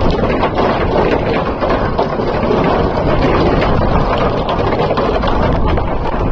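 Steady, loud wind buffeting the microphone, with the rumble of a onewheel board rolling along underneath.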